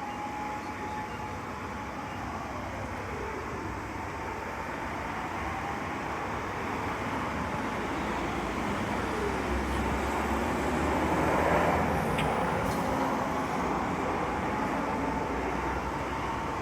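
Road traffic noise with an emergency vehicle's siren wailing, each wail holding a high note for a couple of seconds and then sliding down, repeating about every six seconds. The traffic grows louder past the middle as a vehicle passes close.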